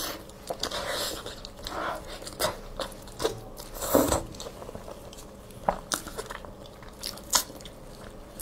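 Close-miked eating of sticky, sauced meat held in gloved hands: wet bites, smacking and chewing with sharp clicks. The loudest bite comes about four seconds in.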